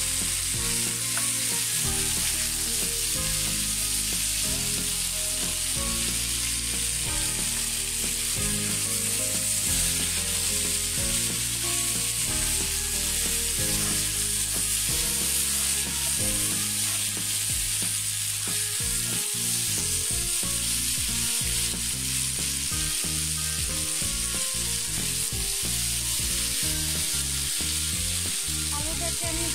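Sweet potato chunks sizzling steadily as they fry in oil in a pan, turned now and then with a metal spatula.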